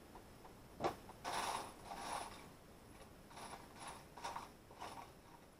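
Small hardware being worked by hand: a sharp click about a second in, then a run of short scraping, ratchet-like bursts.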